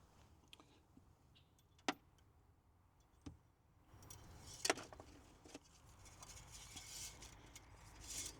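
Faint handling noises: a sharp click about two seconds in, a smaller knock a second later, a louder clatter near the middle, then soft rustling.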